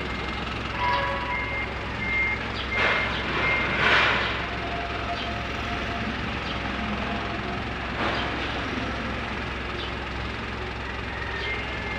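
Vehicle backup alarm beeping at one pitch, about one beep every two-thirds of a second, stopping about three and a half seconds in and starting again near the end. A short hiss is the loudest sound, around four seconds in, over a steady low engine hum.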